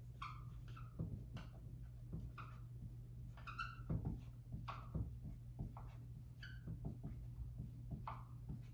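Dry-erase marker squeaking against a whiteboard as numbers are written: about ten short, irregular squeaks over a faint, steady low hum.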